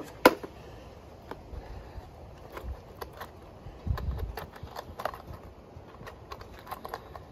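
Scattered light clicks and knocks of plastic things being handled and shifted in a cluttered storage shed, with a sharper knock just after the start and a brief low rumble about four seconds in.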